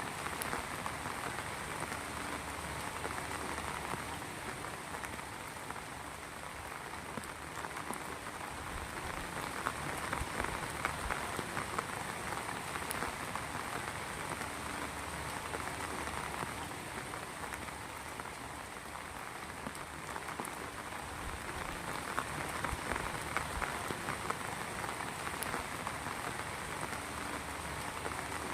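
Heavy rain falling steadily, a dense patter of drops that slowly swells and eases in loudness.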